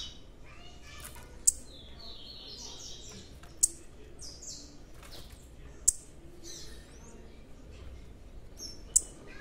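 Blue-black grassquits (tiziu) chirping. Four sharp, high chirps come a couple of seconds apart, with quicker runs of short high notes between them.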